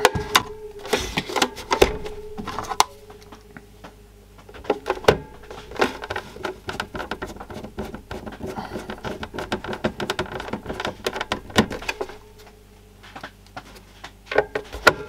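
Handling knocks and clicks from a small plastic portable TV case on a workbench, with a long screwdriver driving screws into its back. There is a run of quick small ticks in the middle and a few louder knocks.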